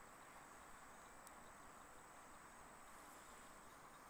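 Near silence, with a faint, steady chorus of crickets and a single faint tick about a second in.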